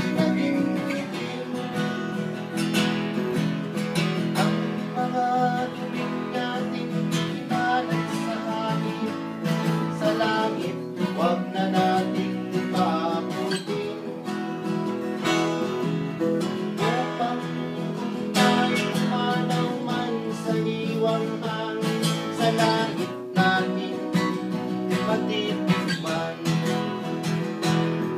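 Acoustic guitar playing a folk song, strummed chords at a steady beat.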